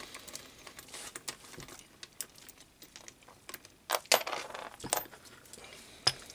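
Scattered light metal clicks and clinks as steel nuts and washers are unscrewed by hand from the studs and set down on a mat. There are louder knocks about four and five seconds in, and another near the end as the cast-iron vise body is lifted off its swivel base.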